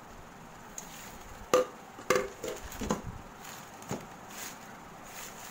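Stainless steel hot box lid knocking against the insulated food server as it is handled and set in place: five or six sharp metallic clinks, some leaving a brief ring, the loudest about a second and a half in.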